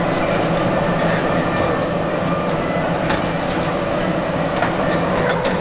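Steady mechanical hum over busy street-stall noise, with a few sharp clicks about halfway through and near the end.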